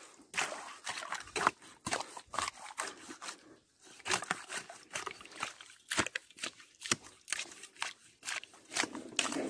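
Wet mangrove mud crackling, with many irregular sharp clicks and pops, several a second.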